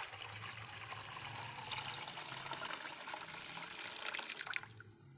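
Water poured from a glass into a steel saucepan already part-filled with liquid, splashing steadily and stopping shortly before the end.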